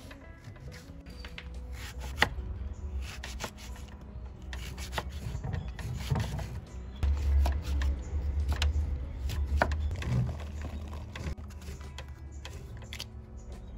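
Knife slicing raw jackfruit bulbs, the blade tapping and scraping on a wooden cutting board at irregular intervals. A low rumble swells under the cutting in the middle.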